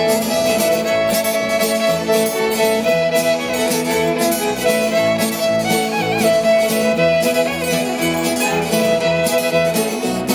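Fiddle playing the lead in an instrumental break, with a slide in pitch about six seconds in, over steady acoustic guitar strumming and upright bass in a country string band.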